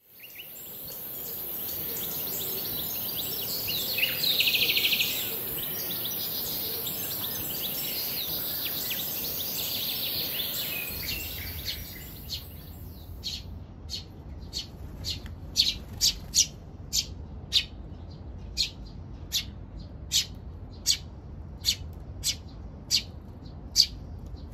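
Eurasian tree sparrows calling: a fledgling's dense begging chatter, loudest in a rapid burst about four seconds in. About halfway through this gives way to single short chirps repeated about twice a second.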